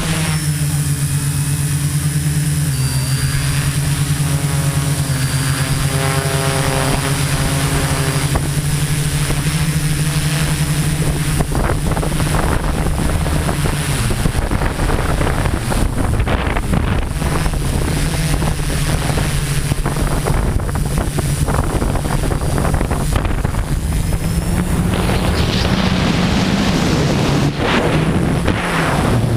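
Homemade multirotor drone's motors and propellers humming steadily, with wind noise on the microphone. The hum drops out for a couple of seconds about halfway through, and it rises a little in pitch near the end.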